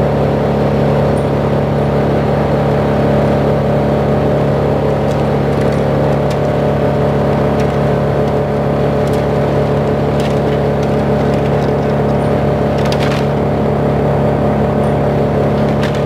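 Diesel engine of a truck-mounted crane running at a steady speed, a constant hum, as it powers the boom during a lift.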